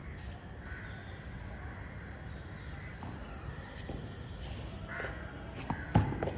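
Wooden cricket bat striking a tennis ball near the end, one sharp crack just after a softer knock of the ball pitching. Birds cawing in the background.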